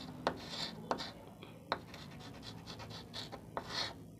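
Chalk scratching on a chalkboard in short strokes, with a few sharp taps as the chalk meets the board.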